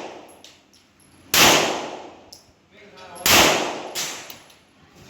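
Two gunshots on a shooting range, about two seconds apart, each with a short echoing tail.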